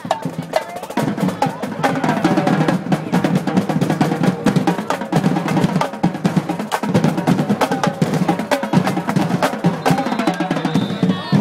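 School band drums in the stands playing a fast, steady drum cadence over the chatter of a crowd.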